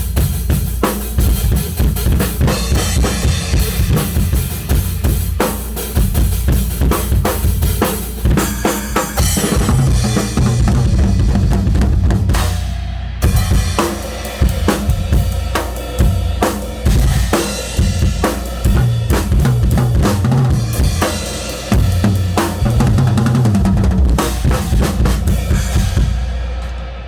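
Tama drum kit with Evans drumheads played hard and fast: kick drum, snare and rimshots under a steady wash of cymbals, with a brief break a little before halfway and the kit dying away near the end.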